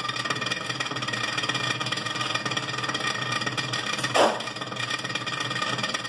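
Continental RFCT455 duplex frost-free refrigerator running, with a steady mechanical rattle and whir from its evaporator fan, whose blades are scraping on built-up ice because the defrost is not working. A short louder noise about four seconds in.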